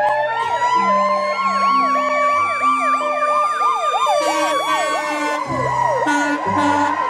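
Ambulance siren in a fast yelp, its pitch sweeping up and down about three times a second over a steady higher tone. Background music plays under it.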